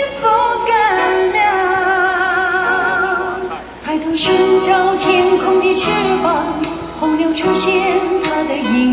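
A Mandarin pop ballad with a singer holding long notes with vibrato over the accompaniment, with a short break between phrases about four seconds in.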